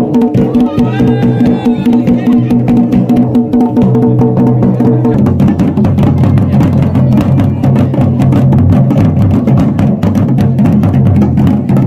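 Music with fast, dense drumming over a steady sustained melody that drops to a lower pitch about five seconds in.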